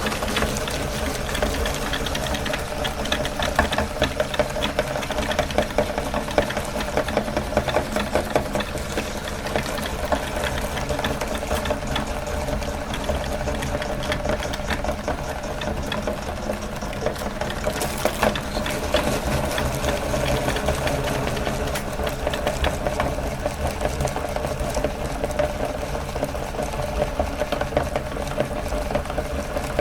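Electric meat grinder running steadily with a fast, even rattle as it grinds ice cream.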